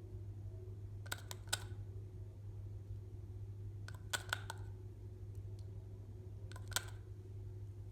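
Slime being worked by hand, giving sharp little clicks and pops in three short clusters over a steady low hum.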